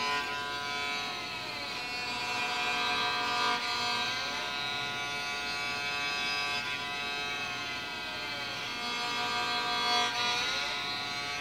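Electric cello bowed in long held notes, with several slides in pitch up and down the string between notes.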